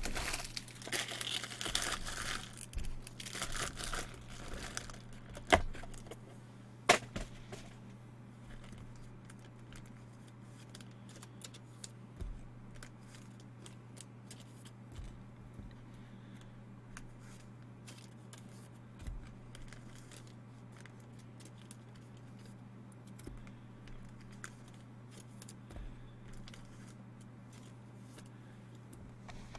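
Wrapping on a trading-card box torn and crumpled for about five seconds, followed by two sharp snaps. After that, only faint small clicks over a steady low hum.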